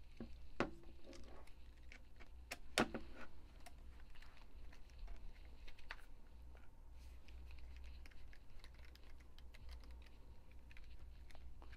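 Light clicks and taps from the Mission TPR launcher's plastic housing being handled and turned over, with two louder clicks about half a second and about three seconds in.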